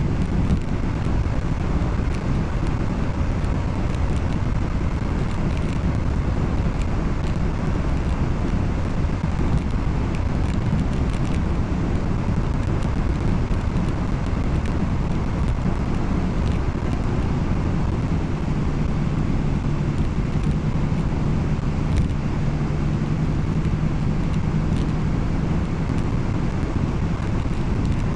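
Steady road and engine noise of a car driving at speed, heard from inside the cabin. A low hum joins in about two-thirds of the way through.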